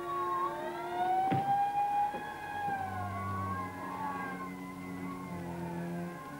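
Alarm siren sound effect wailing in slow rising and falling glides, the prison alarm raised over an escape, with low steady tones underneath. A single sharp knock about a second in.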